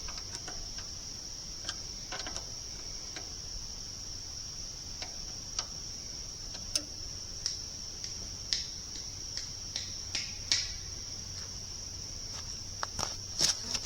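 A steady high-pitched insect chorus runs throughout. Scattered light clicks and knocks sound over it, with several close together near the end.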